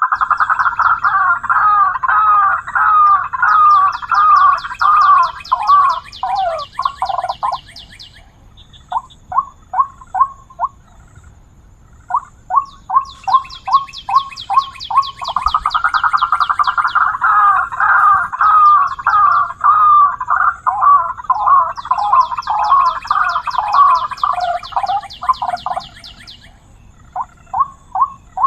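White-breasted waterhen calls: long runs of rapid repeated croaking notes, loud, alternating with shorter spells of separate clipped notes. The same sequence of phrases comes round twice, about fifteen seconds apart.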